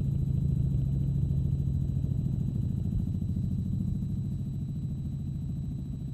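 Helicopter in flight heard from inside the cabin: the engine and rotor make a steady low drone with a rapid rotor beat.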